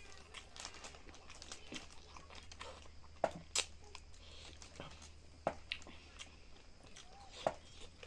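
Close-up eating sounds of a person biting and chewing chicken tangdi kebab (a roasted chicken drumstick): irregular sharp mouth clicks, a few louder ones around the middle and near the end.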